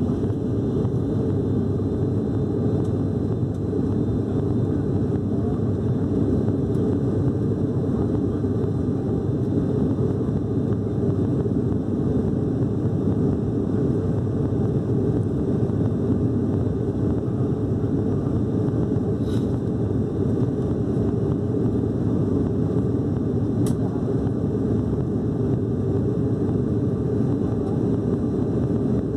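Steady low drone inside the cabin of an ATR 72-600 turboprop airliner climbing after takeoff. Its engines and propellers run evenly throughout. Two faint brief clicks come in the second half.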